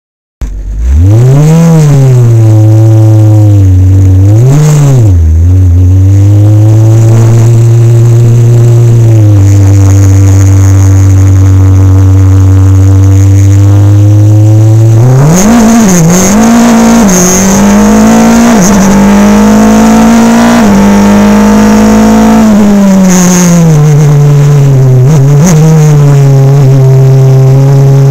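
Formula Renault single-seater's four-cylinder racing engine, heard very loud and close from an onboard camera as the car laps the circuit. The engine note climbs and dips twice early on, holds steady for long stretches, and jumps higher about halfway through. It then sinks and climbs again near the end as the driver works the throttle.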